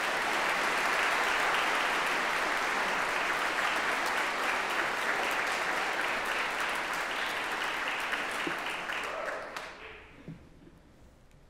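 Audience applauding, a dense steady clapping that dies away about ten seconds in.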